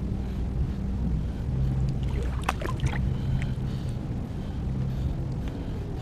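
Shallow seawater swishing and splashing around a hand and arm moving through it, with a few sharp splashes about two and a half seconds in, over a low steady hum.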